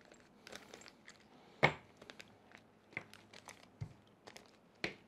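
Small plastic bag of screws being opened and handled: faint crinkling with a few scattered sharp clicks, the loudest about one and a half seconds in.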